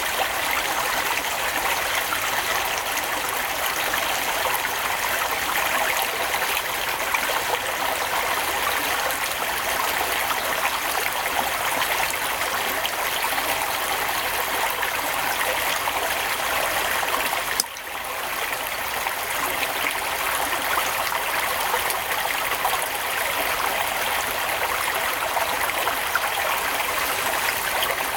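Steady rushing hiss like running water, with a brief break about two-thirds of the way through.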